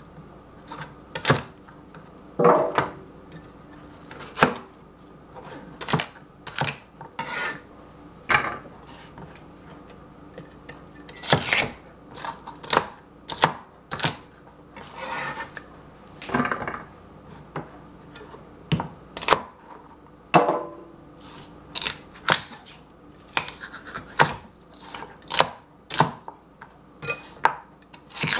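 A cleaver chopping celery stalks on a plastic cutting board: separate sharp chops at an uneven pace, roughly one a second, some in quick pairs.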